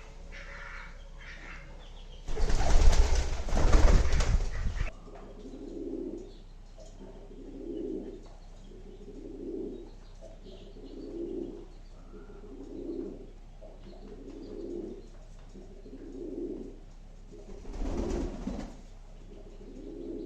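A pigeon cooing over and over, a soft low coo about every second and a half. A loud noisy burst lasting a couple of seconds breaks in early on, and a shorter one comes near the end.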